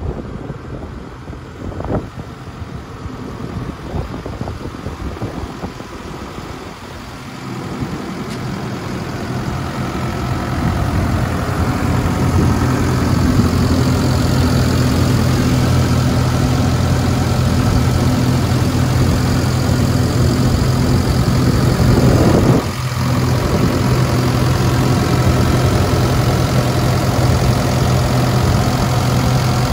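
Ravo 540 STH street sweeper's diesel engine idling steadily. The hum grows louder about a third of the way in and then holds, with a short swell and sudden dip about two-thirds of the way through. Earlier there are a few knocks and some wind on the microphone.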